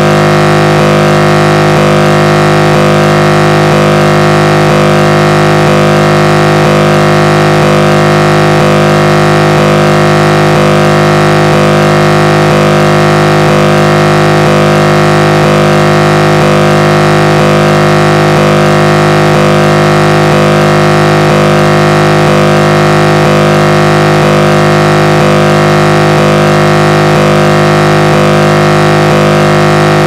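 The RMS Queen Mary's air horn sounding one continuous, unbroken blast: a steady chord of low tones at a constant level.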